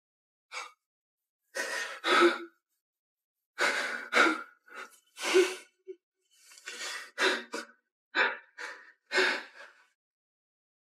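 A person's heavy, gasping breaths and sighs in short, irregular bursts, some with a little voice in them, stopping about ten seconds in.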